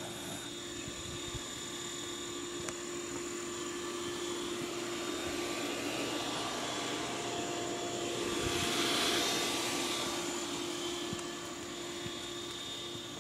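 Aircraft passing overhead: a rushing noise that slowly builds, peaks about nine seconds in, then fades away.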